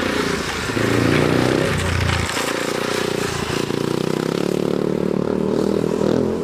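Speedway motorcycle's single-cylinder engine revving hard and easing off as it is ridden round the track, with brief throttle-off dips about two seconds in and again about three and a half seconds in.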